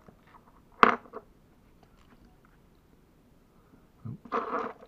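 Small hard plastic parts of a model car kit and a small hand tool being handled on a tabletop: a few sharp clicks, the loudest about a second in, light ticks between them, and a short handling noise near the end.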